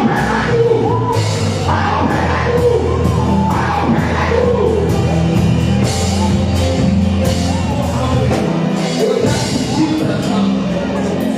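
Loud music with a steady drum beat, sustained bass notes and singing voices.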